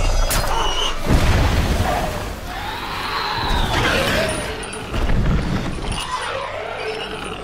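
Movie monster-fight sound effects: a giant reptilian creature's screeching roar that rises and falls in pitch, between two heavy crashing impacts with deep booms, about a second in and again near five seconds.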